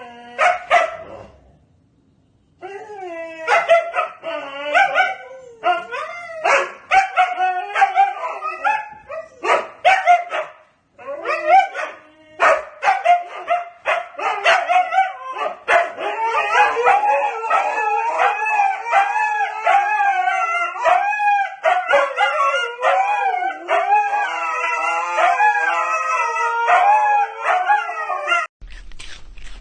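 A dog howling and whining in long, wavering, high-pitched cries with short breaks, rising and falling in pitch, that stop abruptly near the end.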